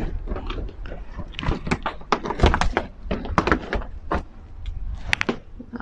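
Irregular knocks and clicks from people moving about inside an old railway carriage clad in sheet metal, with a few low thuds among them.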